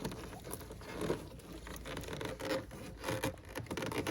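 Rapid, irregular scraping and rubbing of parts being handled and worked into place in a cramped engine bay.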